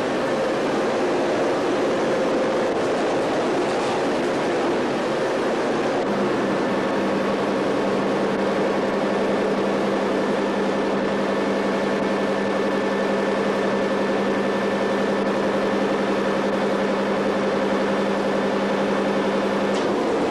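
Steady machine noise: a loud, even rush with a low hum that comes in about six seconds in and drops out near the end.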